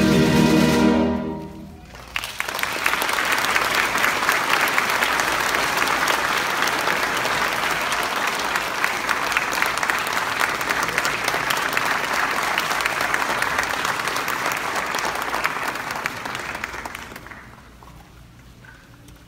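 Music with held notes ends about a second in, and an audience breaks into steady applause that dies away near the end.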